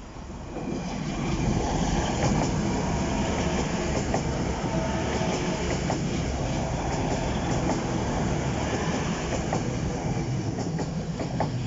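Two coupled Class 185 diesel multiple units passing over a level crossing. Diesel engines run and the wheels click over the rail joints. The sound builds over the first second or so, stays loud, then falls away near the end.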